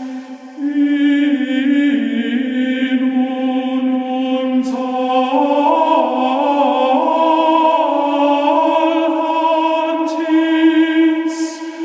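Choral chant music: voices sing long held notes that move to a new pitch every second or two, several parts at once in harmony, with a few sharp sibilant consonants.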